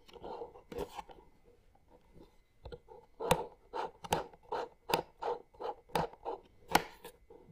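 Plastic tightening knobs on a welding helmet's headgear being turned, giving a run of about ten sharp clicks, two or three a second, in the second half, with softer handling and rubbing before that.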